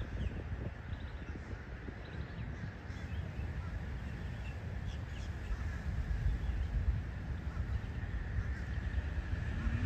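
Low rumble of wind on the microphone, with faint, scattered harsh bird calls.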